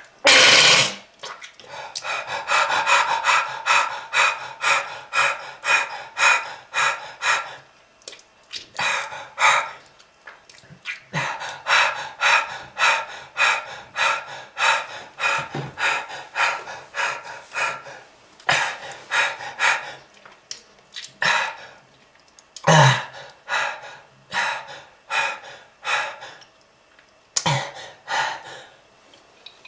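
A person panting in rapid, laboured breaths, about three a second, in long runs broken by short pauses, with a harsh cough at the start and two more later on.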